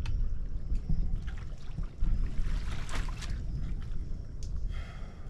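Shallow estuary water splashing and sloshing as a person wades and pulls a wire crab pot up to check it, with a splash right at the start and irregular sloshes after. A low rumble of wind on the microphone runs under it.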